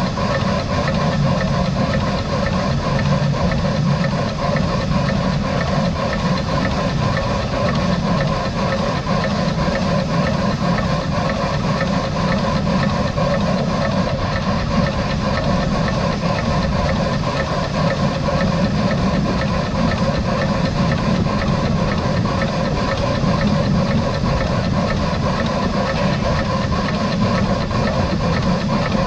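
Steam locomotive No. 92.2271, a 1919 Krauss engine, running steadily along the line with its train, giving a continuous even running noise with no speech.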